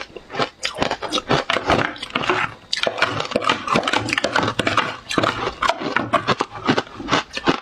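Close-up chewing and crunching of matcha ice in the mouth: a fast, irregular crackle that keeps going.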